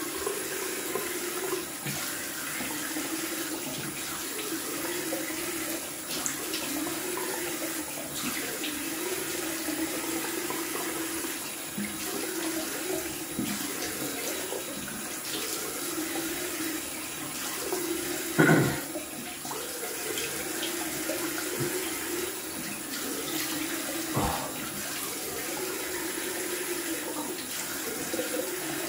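Bathroom sink tap running steadily while cold water is splashed onto the face to rinse off after shaving. A sharp knock sounds about two-thirds of the way through, and a smaller one a few seconds later.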